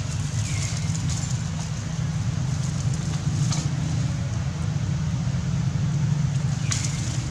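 Steady low rumble of wind buffeting the camera microphone, with a couple of faint clicks.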